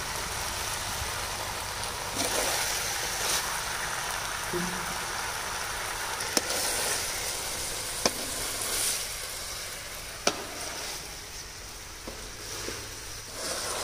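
Chicken pieces sizzling as they dry-fry in oil in a wide pan without water, while a spatula stirs them. Three sharp clicks of the spatula against the pan come in the second half.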